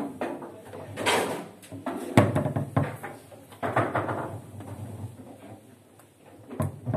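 Foosball table in play: the ball struck by the figures and the rods banging against the table in a run of sharp, irregular knocks, the hardest about two seconds in.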